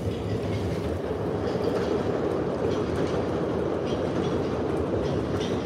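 A steady rumbling background noise, with a few faint clicks of plastic toy trucks being handled.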